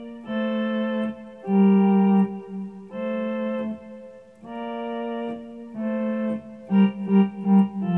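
Electronic keyboard playing a slow melodic phrase of held notes, the same notes doubled an octave apart with both hands. About seven seconds in comes a quick run of three repeated notes.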